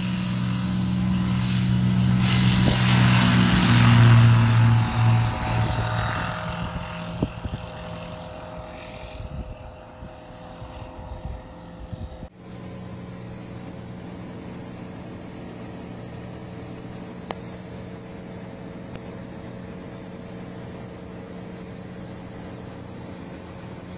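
Light propeller airplane's piston engine at full throttle on its takeoff run. It grows loud as it passes close by about four seconds in, drops in pitch and fades as it climbs away. About twelve seconds in the sound cuts to a steady engine drone heard from inside the small plane's cabin in flight.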